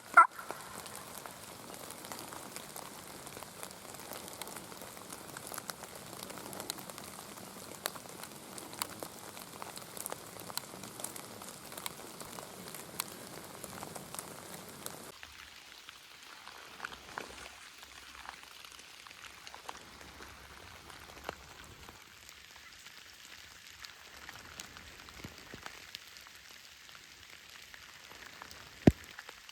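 Steady rain with scattered raindrops ticking sharply on a nearby surface. About halfway through, the sound drops abruptly to a quieter, thinner hiss with fewer drops, and one sharp tick comes near the end.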